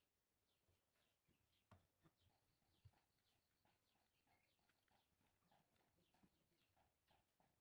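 Near silence: faint, quick chirps repeating a few times a second, with a soft knock or two.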